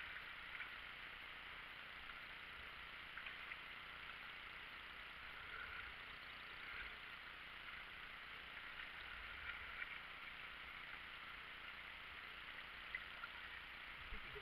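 Steady rush of river water along a moving kayak's hull, with a few small splashes and drips from the paddles.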